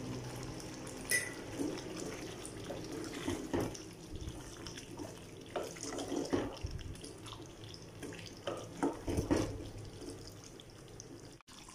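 A spatula stirring thick chicken curry in a nonstick pot: irregular wet sloshes and squelches of gravy and chicken pieces, with a sharper click about a second in.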